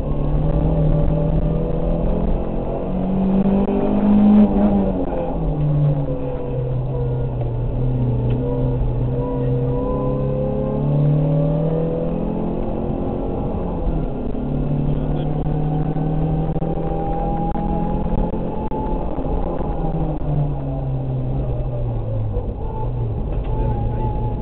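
Rally car engine heard from inside the cockpit, revving up and dropping in pitch at each gear change, over steady road noise. The pitch climbs and falls several times as the car accelerates and lifts between corners.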